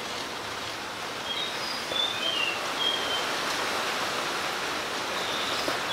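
Steady outdoor background hiss with a few short, high bird chirps scattered through it.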